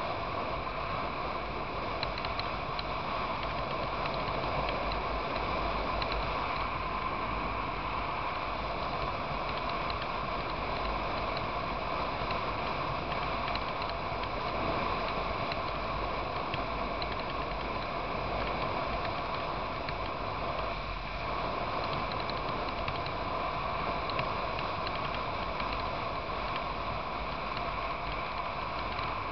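Adventure motorcycle cruising at a steady road speed: the engine runs evenly under a constant rush of wind and road noise, with a rattly mechanical chatter picked up by the camera mounted on the bike.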